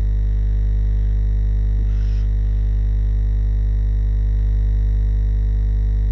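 Steady low electrical hum with a stack of overtones, constant in level, running under the whole recording.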